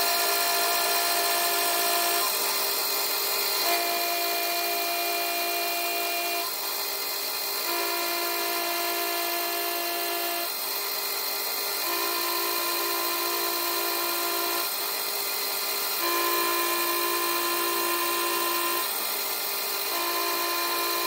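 Boxford BUD lathe running while a cutting tool turns down the outside diameter of a brass bar: a steady mechanical whine with a set of tones that shifts every few seconds.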